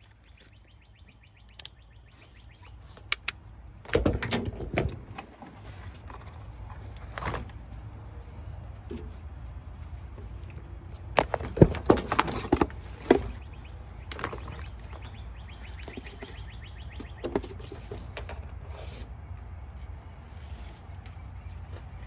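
Scattered clicks and knocks from hand tools and parts being handled at an air-conditioner's open electrical panel, with two short clusters of louder knocks, over a steady low hum.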